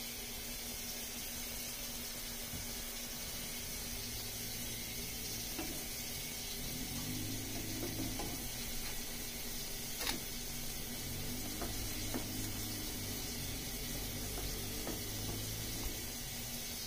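A pancake sizzling in an oiled nonstick frying pan: a steady hiss, with a few light clicks of a spatula against the pan, the sharpest about ten seconds in.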